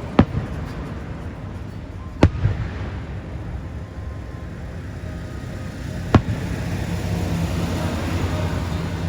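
Fireworks bursting: three sharp bangs a couple of seconds or more apart, the second followed closely by a smaller pop, over a steady low background rumble.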